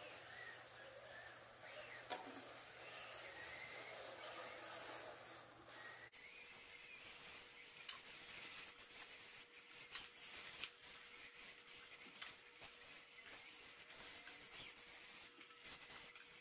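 RC drift cars driving on foam floor mats, heard faintly: electric motor whine rising and falling with throttle, with tyre rubbing and small clicks. About six seconds in the sound changes suddenly, and a steady faint hum with scattered ticks carries on.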